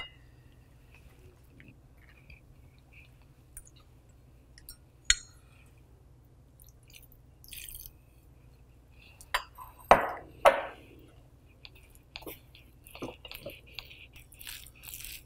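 Thick gram-flour batter with moringa leaves being stirred with a whisk in a glass bowl: soft wet squelching, with a few sharp clicks of the whisk against the glass, the loudest about ten seconds in.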